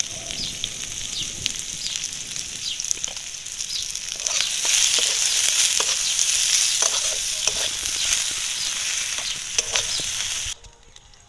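Sliced onions frying in hot oil in a metal wok (kadai), sizzling steadily, with a flat metal spatula scraping and tapping against the pan as they are stirred. The sizzle grows louder about four seconds in and cuts off abruptly near the end.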